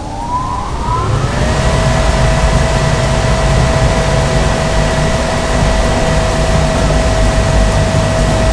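Electric motor-driven centrifugal seal air fan running up to speed. Its whine rises in pitch over about the first second and a half, then holds steady over a loud rush of air and low rumble. This is a balancing trial run with an 8-gram trial weight bolted to the fan.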